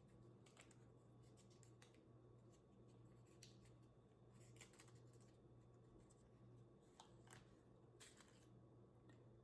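Faint eating sounds: scattered small crunches and clicks, some in short clusters, over a steady low hum.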